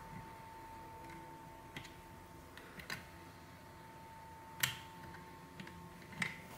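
A handful of faint, irregular clicks and taps from a thin tool poking at the plastic housing inside an infrared thermometer's battery compartment, the loudest a little past halfway, over a faint steady high tone.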